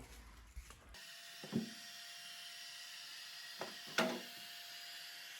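Heat gun running: a steady whine over an airflow hiss, post-heating freshly installed perforated window vinyl. It starts abruptly about a second in, and a few sharp knocks come during it, the loudest about four seconds in.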